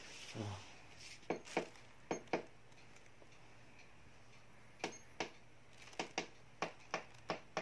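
About a dozen light, sharp clicks or taps, mostly in quick pairs, over a faint steady low hum.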